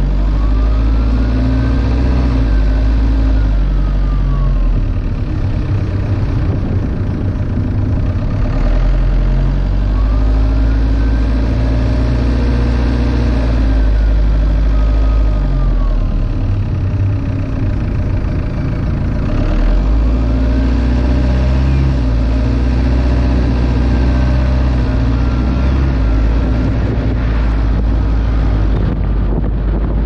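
Car driving, heard through a car-mounted GoPro: engine and road noise under a heavy low rumble of wind on the microphone. Three times, a whine rises in pitch, holds, then falls away as engine speed rises and drops.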